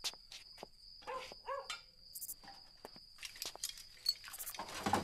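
Light clinks and knocks of metal pots, dishes and utensils being handled, with a dog barking twice in the background about a second and a half in.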